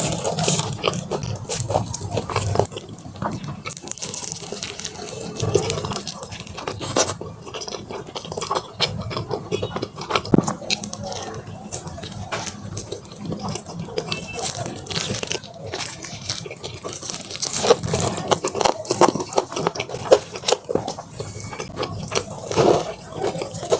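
Close-miked eating of Korean fried chicken drumsticks: crisp coating crunching under the teeth, with wet chewing and smacking sounds in dense, uneven runs of clicks and crackles.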